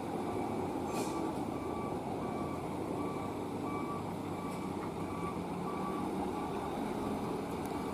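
Truck engine running with an electronic warning beeper sounding evenly, a little under twice a second, the kind of alarm a truck sounds when reversing.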